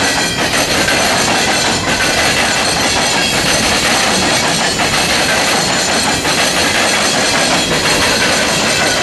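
Freight train's steel wheels rumbling and clattering as coal hopper cars roll across a railroad diamond crossing, with heavy clanks now and then as wheels pound the crossing's gaps.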